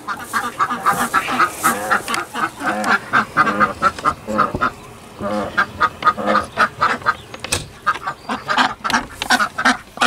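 Several ducks quacking in quick, overlapping calls, still shut in their wooden coop as its door is opened.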